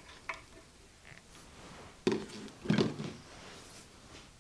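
Light clicks, then two short, louder clunks about two seconds in, from handling the bandsaw's metal parts.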